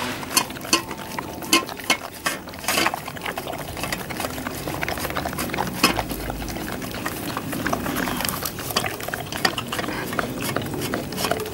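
Two boxer dogs licking and chewing food out of stainless-steel bowls, the metal bowls clinking and clattering against their muzzles and the stand in a rapid, irregular run of sharp clicks.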